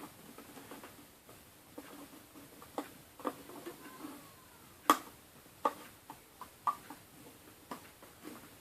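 Scattered light clicks and taps of a loom hook against the plastic pins of a rubber-band loom as rubber bands are lifted and looped forward. The sharpest click comes about five seconds in.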